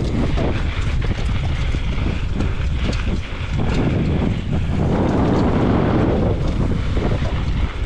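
Wind rushing over the microphone of a camera on a mountain bike descending a dirt singletrack, with the tyres rumbling on the dirt and small knocks and rattles from the bike.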